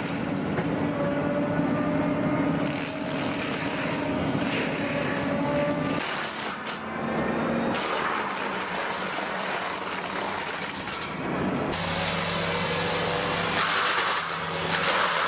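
Heavy diesel forestry machinery running hard while a mulcher or grinder shreds trees and wood. The sound changes abruptly about six and twelve seconds in.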